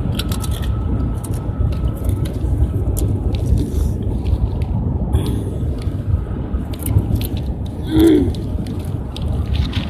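Steady low rumble of a car cabin on the move, with scattered crunching and crackling clicks and one short voice-like sound about eight seconds in.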